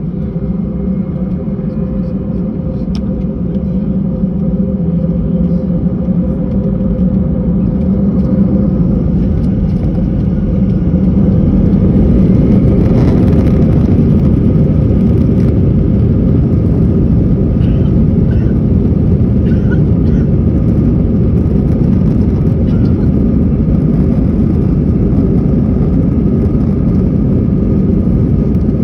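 Airbus A320 jet engines at takeoff thrust during the takeoff roll, heard from inside the cabin. The steady rumble builds over the first ten seconds or so and then holds at full power.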